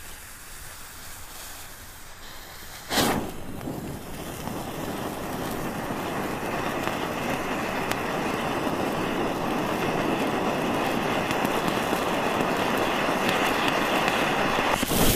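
Bengal smoke fountain igniting with a sudden whoosh about three seconds in, then burning with a steady hiss of flame and sparks that slowly grows louder, breaking into crackling at the very end.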